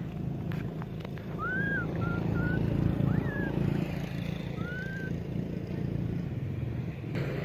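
A handful of short, high, arched chirping calls over a steady low rumble.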